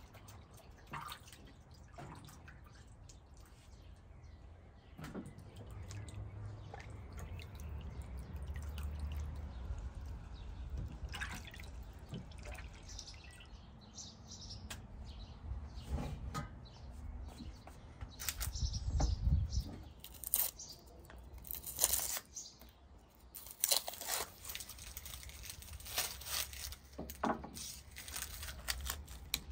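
Hands working food in a bowl of water: small splashes, drips and wet clicks, scattered at first and busier in the second half.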